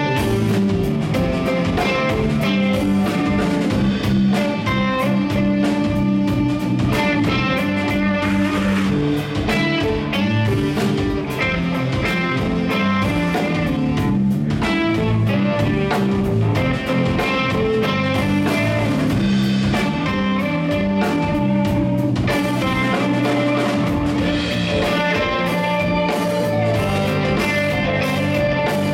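Live band music: electric guitars over bass guitar and a drum kit, playing without a break.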